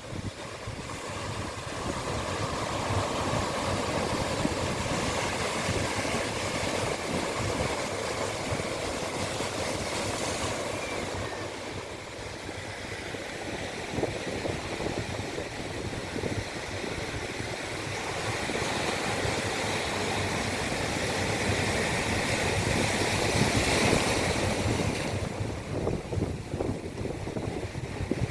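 Sea waves breaking and washing up a beach, a continuous surging wash that swells and eases, loudest about three-quarters of the way through, with some wind on the microphone.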